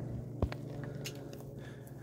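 An engine running steadily in the background, with footsteps on dry grass and a sharp click about half a second in.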